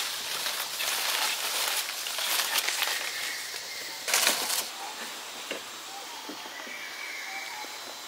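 Dry leaf litter rustling and crackling as macaques scamper over the forest floor, with a brief louder scuffle about four seconds in as two monkeys tussle.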